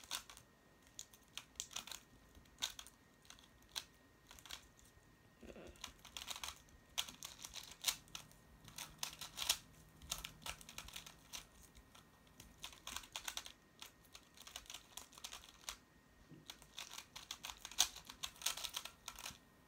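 3x3 Rubik's cube being solved by hand: rapid runs of plastic clicks as the layers are turned, with short pauses between the runs.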